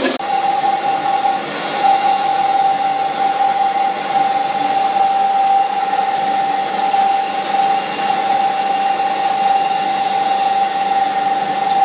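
Crankshaft grinding machine running, its grinding wheel dressing the journals of a single-cylinder diesel crankshaft while coolant sprays onto the work. There is a steady high whine over a wash of liquid-like noise.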